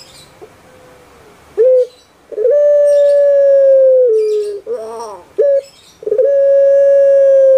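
Puter pelung, a Barbary dove (Streptopelia risoria), cooing: a short note, then a long held coo that drops in pitch at its end, a brief rough cluster of notes, and a second long held coo from about six seconds in.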